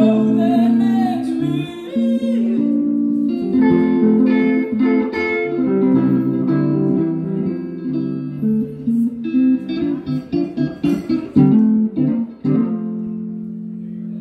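Guitar played live: picked notes that grow short and quick a little past halfway, then a chord held and left ringing for the last couple of seconds.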